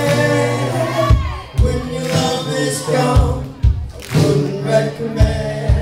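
A live band playing with several voices singing together over electric guitar, bass and drums. Kick-drum thumps come at irregular intervals.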